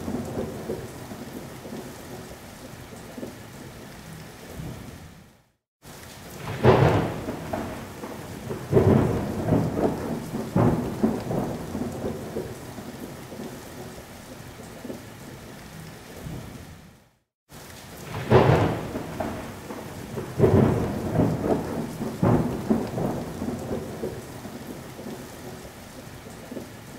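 Thunderstorm: thunder cracking and rumbling over steady rain. The same run of peals repeats about every twelve seconds, with a brief dropout before each, like a looped storm sound-effect track.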